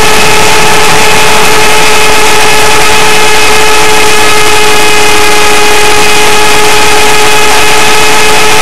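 Align T-Rex 500 electric RC helicopter heard from a camera mounted on it: a very loud, steady whine from the motor and gears, holding one pitch, over the rush of the rotor.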